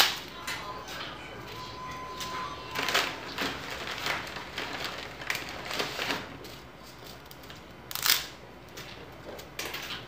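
Scattered sharp clicks and knocks of hands working at a gas stovetop beside a pot of spaghetti boiling, the loudest about eight seconds in.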